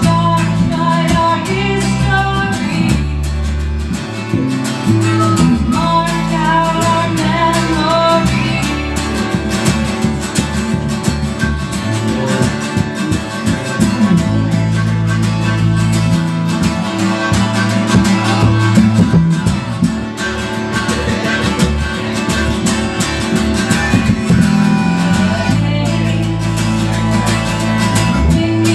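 Live acoustic country-folk music: a strummed acoustic guitar with a harmonica playing long, wavering held notes over it.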